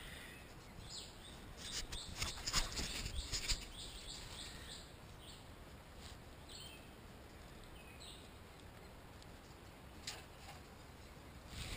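Small birds chirping faintly in woodland. About two to three and a half seconds in there is a burst of rustling and light clicks, with one more click near the end.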